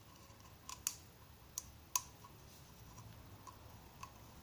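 Light, sharp clicks of a black plastic cartridge oil filter housing cap being handled and turned in the hands, four in the first two seconds and one more near the end.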